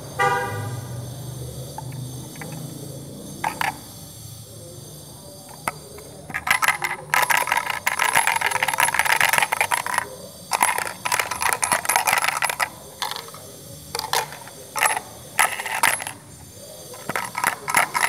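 LEGO gumball machine being worked by hand: spells of rapid rattling and clicking, a second or two at a time, begin about six seconds in, with a ringing, coin-like clink. A brief pitched tone sounds right at the start.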